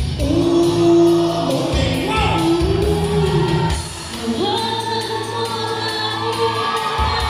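Song with sung vocals played loud over loudspeakers in a hall; the drum beat stops about four seconds in, leaving held singing over sustained chords.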